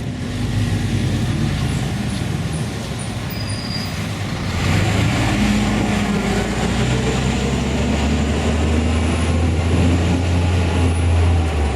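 Large road vehicle's engine running close by, a steady low drone with traffic noise that gets louder about four and a half seconds in.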